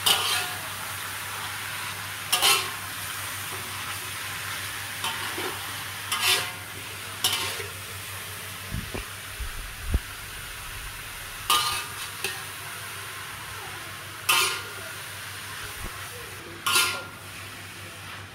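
Mushrooms sizzling in hot oil in an aluminium wok, stir-fried with a spatula that scrapes against the pan every second or two. There are a few dull knocks around the middle.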